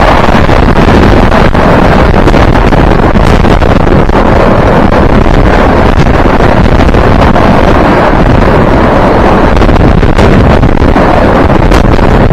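Freight train of double-deck car-carrier wagons passing through at speed right beside the platform: a loud, steady rush of wheels on rail and moving air, with a few sharp clicks.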